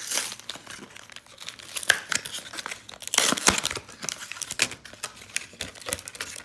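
Plastic blister packaging and foil booster packs of Pokémon trading cards crinkling and tearing as a double-pack blister is opened by hand: a run of sharp crackles, loudest about three seconds in.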